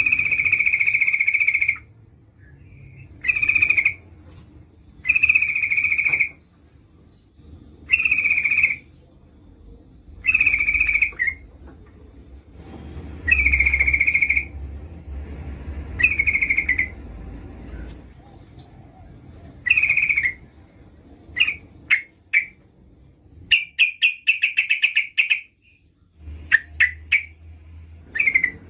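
Yellow-vented bulbul (trucukan) calling: loud phrases of about a second, repeated every two seconds or so, then a quicker run of short notes near the end. The call is presented as a female calling a male.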